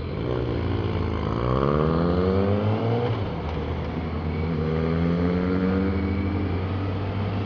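Sport motorcycle's engine pulling away and accelerating through the gears: its pitch rises, drops at an upshift about three seconds in, then climbs again, with wind rush on the helmet-mounted microphone.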